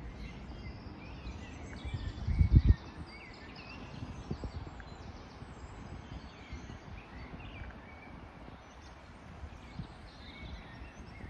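Birds chirping and singing in trees against a steady outdoor hiss, with a brief burst of low buffeting on the microphone about two seconds in.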